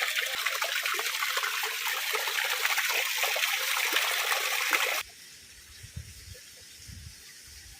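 Water of a small waterfall splashing and trickling down rock, a steady hiss that cuts off abruptly about five seconds in, leaving only a much quieter low rumble.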